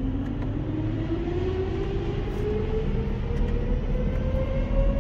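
BMW X5 F15's four-cylinder engine at full throttle on a chassis dynamometer during a power run, its revs climbing steadily under load in a smooth rising drone.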